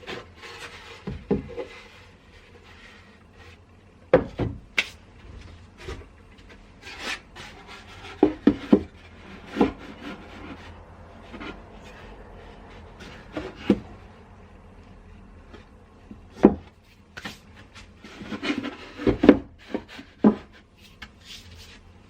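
Thin wooden boards being handled and worked: scattered knocks and clacks of wood, with rubbing and scraping between them.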